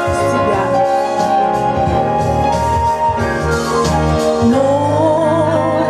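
A woman singing live into a microphone over backing music with a steady bass line, rising into a long held note with vibrato near the end.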